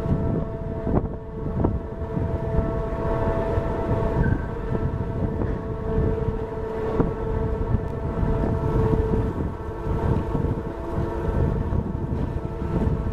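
Steady machinery hum from the moored MS Artania cruise ship, several even tones held throughout, with wind buffeting the microphone in low gusts.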